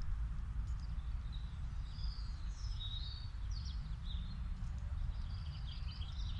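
Small songbirds chirping and twittering in short calls throughout, over a steady low background rumble.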